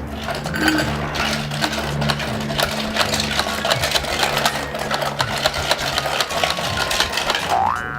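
Rapid plastic clicking and rattling from a Hot Wheels toy playset being played with, over a steady low hum. Near the end a rising, repeating boing sound effect starts.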